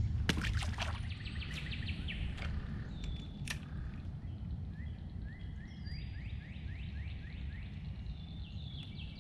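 Songbirds singing in several bouts, each a quick series of short rising notes, over a steady low rumble. A few sharp clicks come about half a second in and one more near three and a half seconds.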